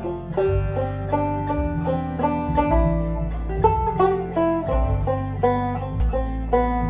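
Deering Clawgrass 2 five-string banjo played clawhammer style: a quick run of plucked, ringing notes. Underneath is a computer-generated backing track with a low sustained bass.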